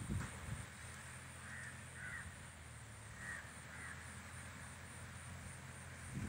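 A distant tractor running with a straw baler makes a steady low drone. A bird calls four short times over it, in two pairs, about a second and a half in and again past three seconds.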